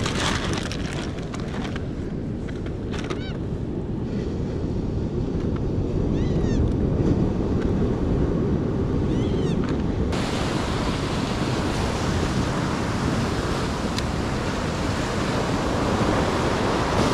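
Ocean surf breaking on a rocky shore, a continuous rush, with wind on the microphone. The rush grows brighter and fuller about ten seconds in.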